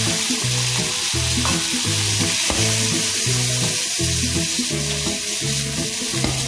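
Diced smoked pork shoulder sizzling steadily as it fries in very hot oil in a wok, with background music carrying a low bass line that changes note about twice a second.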